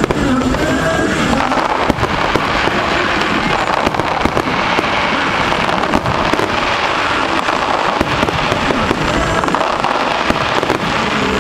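A barrage of aerial firework shells bursting in quick succession: many sharp bangs and pops overlapping into a continuous, loud din.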